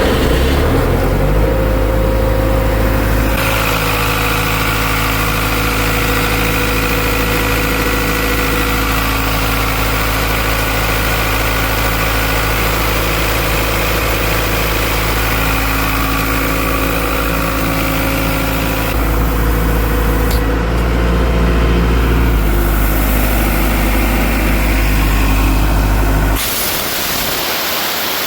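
Cummins 4BT four-cylinder diesel engine of an Ingersoll Rand P375WCU portable air compressor, picking up speed in the first second and then running steadily, its pitch shifting slightly a couple of times. Near the end the engine tone cuts off and a steady rushing hiss remains.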